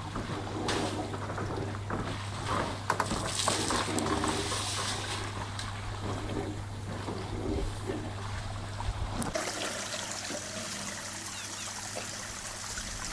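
Water trickling and splashing at a pool where wild African elephants are drinking, over a steady low hum that cuts off about nine seconds in.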